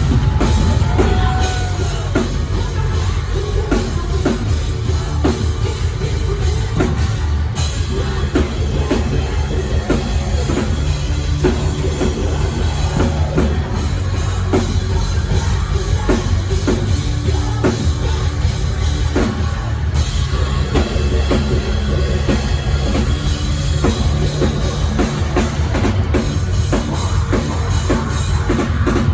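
Live rock band playing loud and continuously, with the drum kit and bass drum driving the song.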